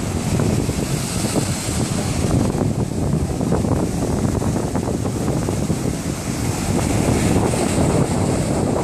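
Ocean surf breaking and washing up the beach, with wind buffeting the microphone. The hiss of the surf swells about a second in and again near the end.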